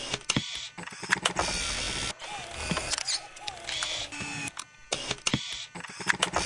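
Glitch sound effects for an animated logo intro: rapid stuttering clicks and crackles with short chopped bursts of static-like hiss and a few brief electronic blips.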